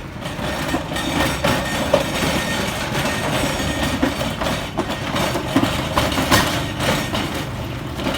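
A vehicle engine running steadily, with irregular knocks and clatter over it.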